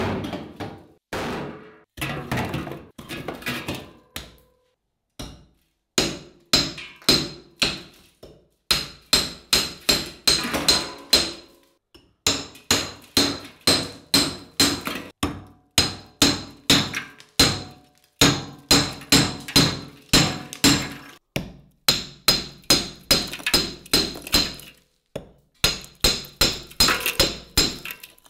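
A hatchet chopping blocks of ice in a stainless steel stockpot: repeated hard strikes, about two a second for most of the stretch, with a metallic ring after the blows and brief pauses between runs.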